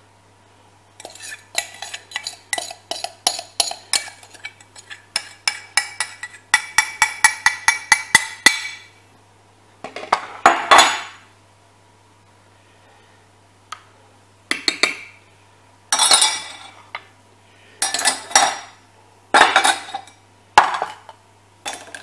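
Metal spoon clinking against a glass baking dish in a fast run of light taps, about four or five a second, then scraping along the dish a few more times.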